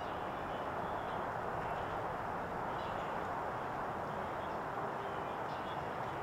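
Steady outdoor background noise with faint bird chirps now and then.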